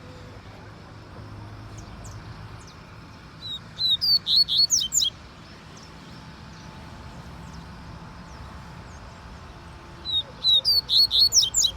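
Sporophila seedeater singing: two short phrases of quick, high chirping notes, one about four seconds in and one near the end, each lasting about a second and a half.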